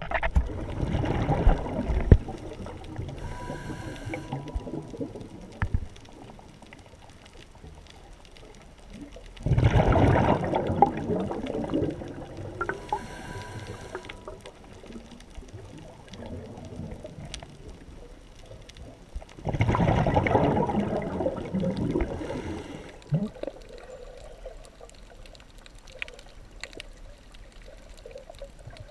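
Scuba regulator breathing underwater: three exhalations heard as loud rushes of bubbles about ten seconds apart, the first two each followed a few seconds later by a softer inhalation hiss with a faint whistle.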